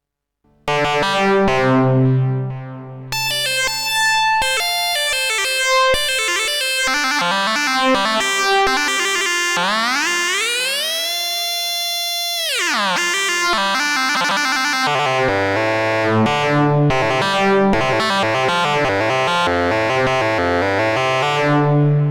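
Ad-vantage 03m monophonic semi-modular analog synthesizer playing a run of bright, buzzy notes that starts about half a second in. Near the middle the pitch glides up, holds for a couple of seconds, then slides back down.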